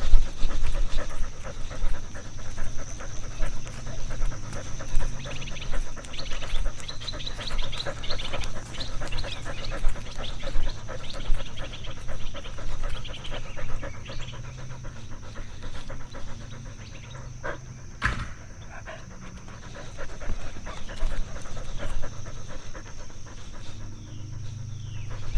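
A dog panting rapidly and close up, picked up by a camera strapped to the dog's own body; the panting eases off for a few seconds past the middle. A single sharp click sounds about two-thirds of the way through.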